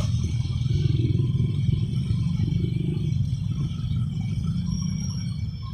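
Train passing by: a steady low rumble of wheels on the rails with some clatter, slowly fading near the end.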